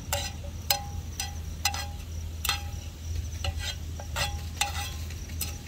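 Chopsticks tapping and scraping against a metal wok lid and wok, about two taps a second, each with a short metallic ring. Crickets chirp steadily behind, over a low steady hum.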